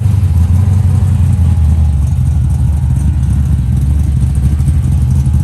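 A car engine running loud and steady at idle, with a deep exhaust rumble.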